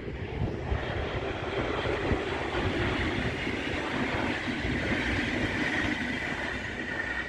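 Passenger train passing close by at speed: a steady rush of wheels on rail, with a high ringing tone that grows stronger toward the end.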